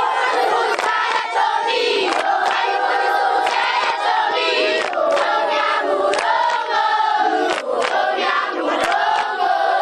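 A large group of schoolchildren singing and chanting together, with scattered hand claps.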